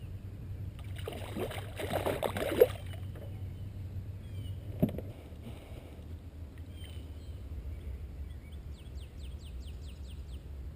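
Kayak on the water: sloshing and splashing for a couple of seconds about a second in, with a sharp knock at its end and a second knock a couple of seconds later, over a steady low rumble. Near the end a bird gives a quick trill of falling notes.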